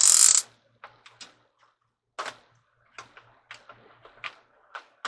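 Rope ratchet hanger being tightened: a short, loud zip of rope pulled through at the start, then irregular sharp ratchet clicks as it is adjusted.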